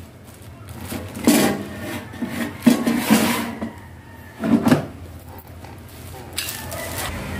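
Plastic basket drawer of a GWEICH air fryer being slid and pushed into the fryer body: three bursts of knocking and scraping, about a second and a half apart.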